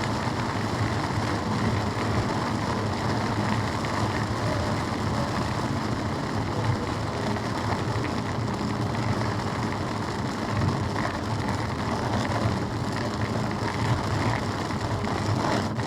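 Steady road noise of a car driving on a highway, even throughout with no sudden loud sounds.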